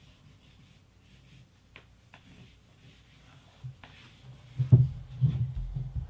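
Graphite scratching and rubbing across a large sheet of brown paper as lines are drawn, with a few sharp ticks. Low thumps come in near the end and are the loudest sound.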